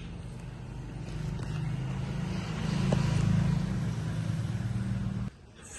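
Low buzzing hum from a switched-on battery-operated toy, swelling to its loudest about halfway through and cutting off suddenly near the end.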